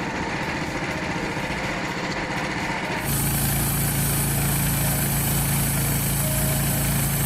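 The small gasoline engine of a Frontier OS27 portable band sawmill running steadily. About three seconds in, the sound changes abruptly to a louder, even drone with a high hiss over it.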